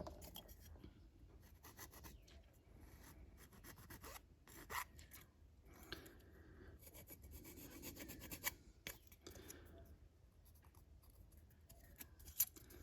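Faint scraping and rubbing on small plastic model parts as the sprue gate marks are smoothed off, with a few light handling clicks.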